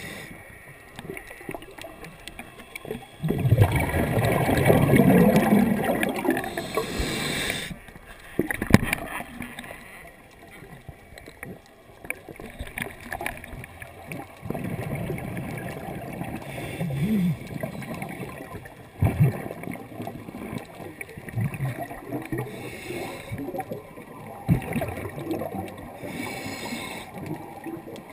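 Scuba diver breathing through a regulator underwater: exhaled air bubbles out with a gurgling rumble in bursts, the longest and loudest about three to eight seconds in, then several shorter, quieter breaths.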